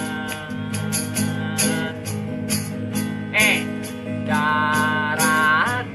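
Instrumental break in a Sundanese pop song: a sustained melody with vibrato over plucked strings, a steady low accompaniment and regular percussion ticks.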